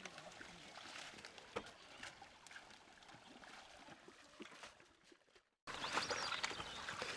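Faint splashing and rustling of wet water hyacinth and mesh net being handled in shallow water, with scattered drips and light knocks. The sound cuts out briefly about five seconds in, then comes back louder.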